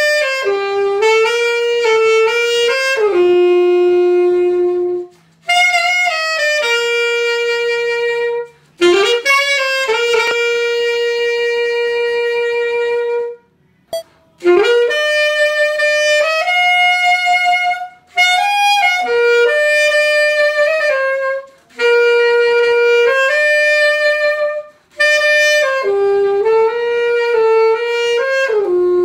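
Alto saxophone on a Meyer mouthpiece playing a slow melody in short phrases, with held notes, some notes scooped up into pitch, and brief breath pauses between phrases. Partway through, the set-up changes from a fusion-style tone to a classic-style tone.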